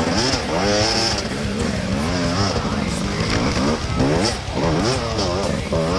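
Enduro dirt bike engine revving up and down repeatedly as the rider works it over rough forest ground, its pitch rising and falling about every second.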